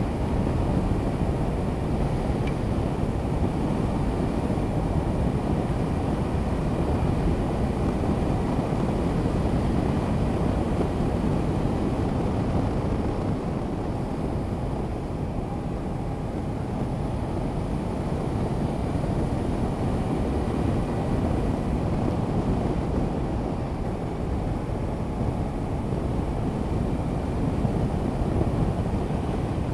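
A Honda CB500X's parallel-twin engine running at a steady cruise, with wind rushing over the microphone of the rider's camera.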